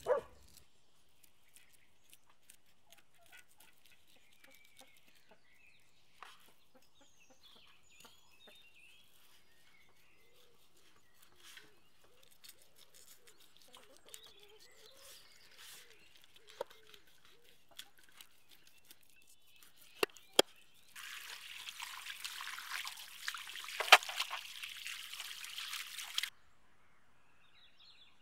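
Knife scraping scales off a raw milkfish on a steel tray: faint scattered scrapes and clicks, then a loud rasping stretch of scraping with a few sharp clicks lasting about five seconds near the end.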